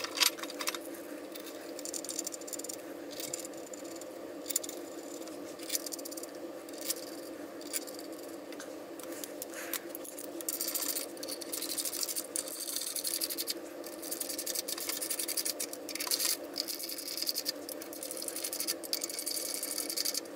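Scattered metal clinks and taps as a cast-iron bearing retainer and its bolts are fitted, then from about halfway a hand ratchet clicking in fast runs as the bolts are run down, over a steady hum.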